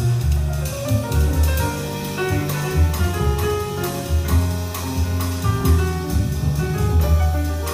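Live jazz ensemble music carried by the rhythm section: a double bass plays loud, sustained low notes, drum-kit cymbal strokes keep time, and piano notes sound above them.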